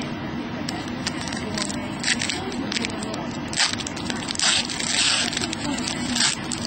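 Foil trading-card pack wrapper crinkling and rustling in short irregular bursts as it is handled and opened, loudest about four to five seconds in, over a steady low hum.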